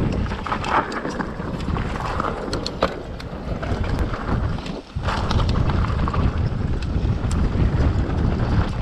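Wind buffeting a helmet-camera microphone on a mountain-bike descent, with rattles and sharp clicks from the bike on rocky ground. The noise dips briefly about five seconds in, then comes back louder.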